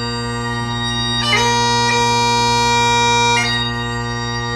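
Highland bagpipes playing over their steady drones. About a second in, the chanter jumps to a high note and holds it for about two seconds before dropping back into the tune.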